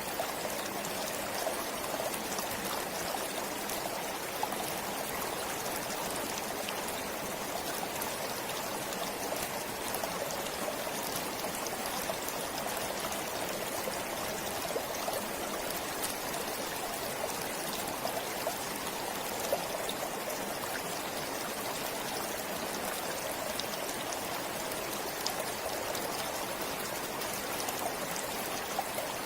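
Forest stream flowing steadily over rocks, an even rushing with small splashes and trickles throughout.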